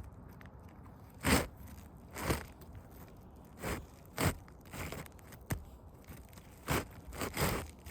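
Irregular gritty scrapes and crunches on asphalt roofing shingles, about one a second, each brief, while a new shingle is being worked into place.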